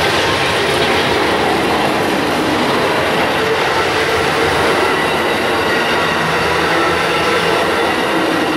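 Amtrak Superliner bilevel passenger cars rolling past at close range: a steady, loud noise of steel wheels running on the rails.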